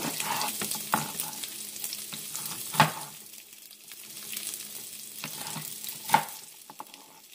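Garlic and onion sizzling in oil in a stainless-steel skillet, a steady hiss. Over it come a few sharp knocks of a knife hitting a plastic cutting board while a chile güero is sliced, the loudest about three seconds in and about six seconds in.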